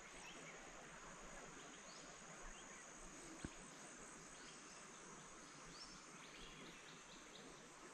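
Faint, steady, high-pitched drone of insects, with scattered faint chirps and one soft tap about three and a half seconds in.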